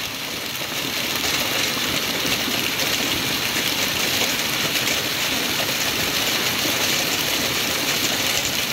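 Heavy fall of small hailstones pelting a swimming pool's water, paving and palm fronds, a steady dense hiss.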